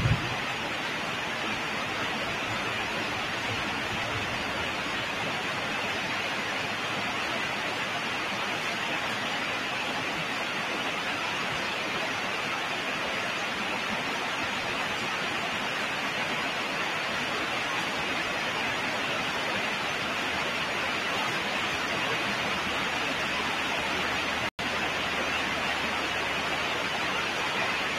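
Steady, even hiss of background noise with no speech. There is a short thump at the very start and a momentary cut-out about twenty-four seconds in.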